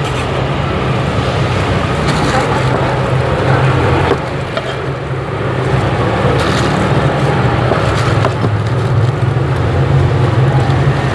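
A steady low hum under continuous, even background noise, with no single clear event standing out.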